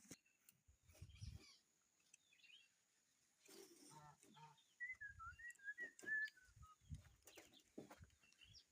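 Faint farmyard animal sounds: a bird's wavering whistled call a few seconds in, short chirps, and clucking calls like chickens, with a few soft low thumps.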